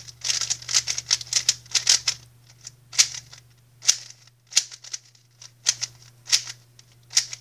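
GAN 356 Air SM magnetic speed cube being turned by hand, its layers clicking with each turn. The clicks come in quick runs of several a second for about the first two seconds, then as single turns roughly a second apart.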